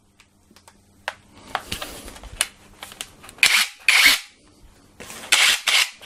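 Clicks and handling noise from a WORX cordless rotary hammer being turned over in its plastic bag, then two short, loud rushing bursts, about three and a half and five seconds in.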